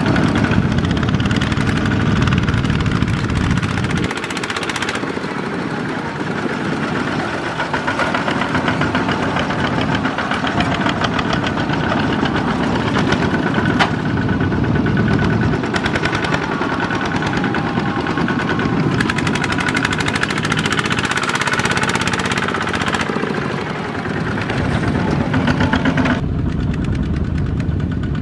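Single-cylinder diesel engines of Kubota two-wheel walking tractors chugging with a fast, even beat as they pull trailers loaded with rice sacks.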